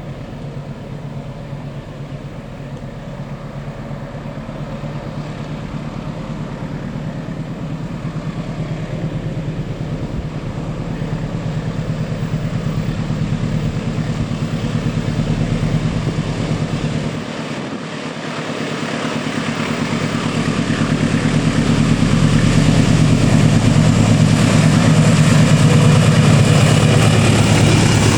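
Diesel locomotive engine running with a steady low drone, growing louder as the train draws near. It dips briefly about two thirds of the way in, then rises to its loudest near the end.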